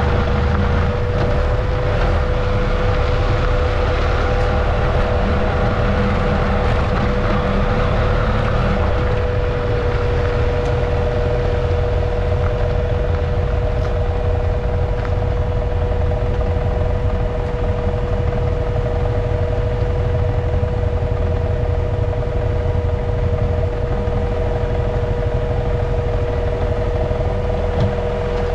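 Adventure motorcycle engine running at a steady speed on a dirt road, its note holding an even pitch over a dense, steady low rumble.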